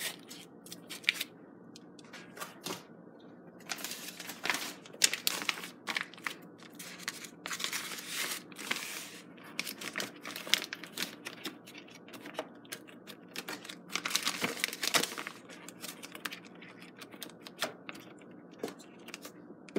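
Plastic vacuum-sealer bag crinkling and rustling in irregular bursts as it is handled and smoothed flat in the sealer's slot.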